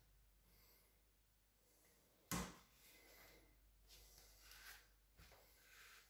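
Near silence with a single sharp knock about two seconds in, the plastic floor nozzle and wand of a Bosch GL-20 canister vacuum being handled, followed by a few faint soft handling sounds. The vacuum's motor is not running.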